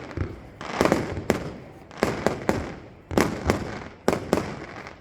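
Fireworks display: aerial shells bursting in a rapid series of sharp bangs, about a dozen, some a fraction of a second apart, each with a short echoing tail.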